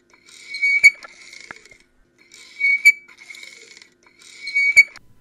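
An added sound-effect jingle: a high steady tone that swells and ends in a sharp click, three times about two seconds apart, over a faint low hum.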